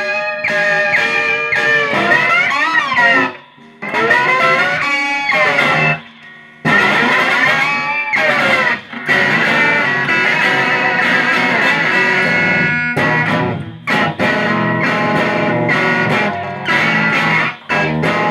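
Amplified guitar played in free improvisation: ringing, sustained notes with sliding pitch, in choppy phrases that stop abruptly and restart several times.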